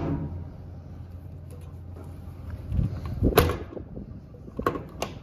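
Clunks and sharp metal clicks of a truck utility body's latch hardware being handled: a knock and click about three seconds in, then two quick clicks near the end as a hand works a recessed compartment latch. A faint low hum runs underneath.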